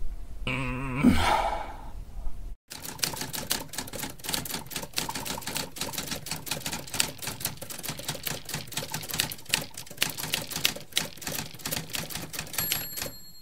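A voice moaning and groaning for about the first two seconds. Then a typewriter typing with rapid clacking keystrokes for about ten seconds, with its bell ringing near the end.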